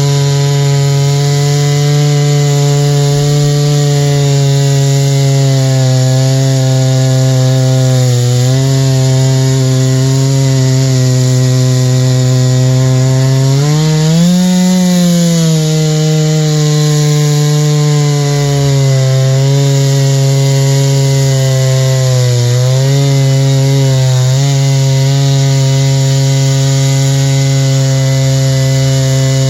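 Chainsaw mill ripping a white spruce log lengthwise, the chainsaw running steadily under load in the cut. Its pitch dips a few times and rises briefly about halfway through.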